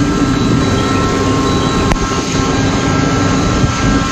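Steady drone of a jet aircraft running, with several constant whining tones over a hiss. There is one sharp click about two seconds in.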